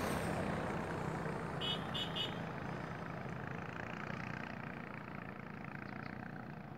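Road vehicle noise that fades away steadily, with three short horn beeps about two seconds in.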